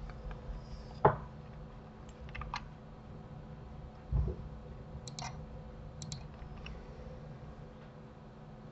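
Computer mouse clicks and keyboard key presses: short sharp clicks, several in quick pairs, with a louder knock about a second in and a dull thump about four seconds in.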